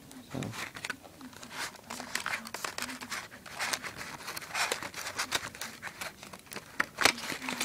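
Wrapping crinkling and tearing as a newly delivered pocket knife is unwrapped by hand, in irregular crackles, with one sharper click about seven seconds in.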